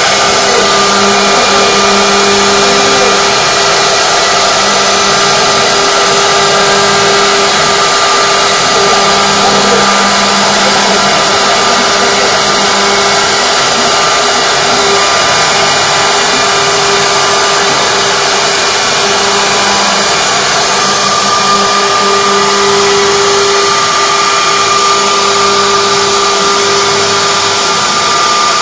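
CNC router spindle carving a wooden column held in a rotary axis, the bit cutting steadily: a loud, even whine over a constant hiss of cutting.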